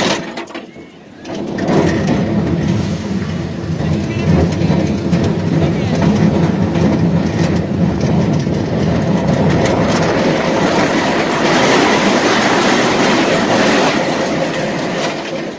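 Roller coaster car running fast along its track, rattling and clattering, with wind buffeting the microphone. It drops briefly quieter about a second in, then stays loud.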